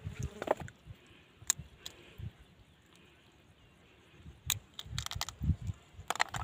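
Faint handling of a small freshwater crab by hand: scattered clicks and low thumps, then a cluster of crackling clicks near the end as the crab's shell is broken apart.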